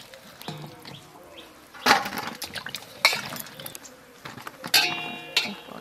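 Water sloshing and splashing in a steel bowl as cut pumpkin pieces are rubbed clean by hand and lifted out, with a few sharp splashes and clinks as pieces are dropped onto a steel plate.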